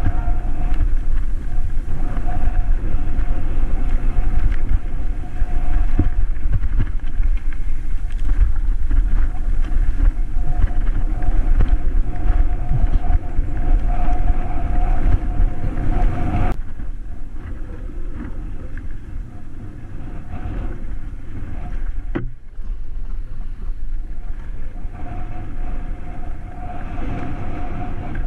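Mountain bike riding fast down a rocky dirt singletrack, heard from a handlebar-mounted action camera: wind buffeting the microphone over the rumble of tyres and the rattle of the bike over stones, with a steady thin whine that comes and goes. The sound drops suddenly to a softer rumble about 16 seconds in.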